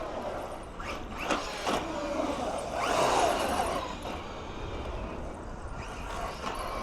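MJX 10208 RC truck's electric motor whining, rising and falling in pitch as it is throttled, loudest about three seconds in. There are a few sharp knocks between about one and two seconds in.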